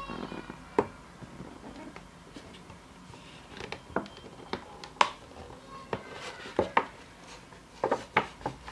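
Plastic packaging clicking and crackling in irregular, sharp snaps as a Pokémon promo card is worked free of it by hand.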